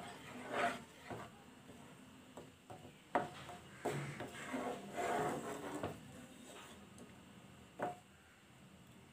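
Wooden spatula scraping and knocking against a nonstick pan as it stirs bubbling rose apple jam, in irregular strokes.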